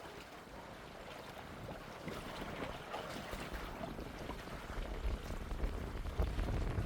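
Wind rumbling on the microphone over moving water, the wind growing stronger over the last couple of seconds, with a few faint short taps.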